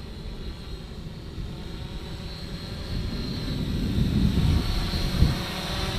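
Homebuilt quadcopter in flight: T-motor 650 kV motors turning 12x6 Graupner E-props, a steady whine with a rushing noise that grows louder in the second half.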